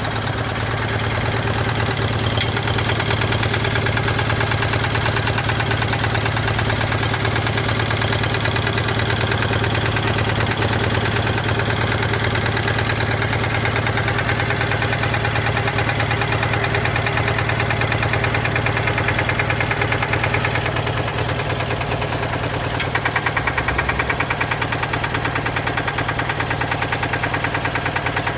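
Citroën 2CV air-cooled flat-twin engine running steadily, with a fast, even beat of firing pulses; it gets slightly louder about two-thirds of the way through.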